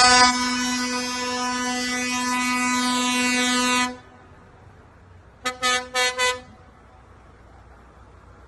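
A truck air horn sounds one long steady blast of about four seconds. After a short pause, four quick short toots follow on the same note.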